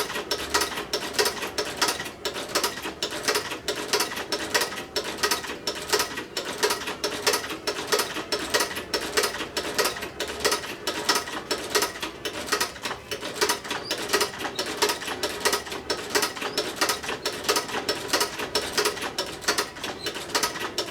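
Sewing machine stitching a zipper tape into a leather jacket, a steady even clatter of about three stitches a second, run slowly so the leather feeds without breaking the needle.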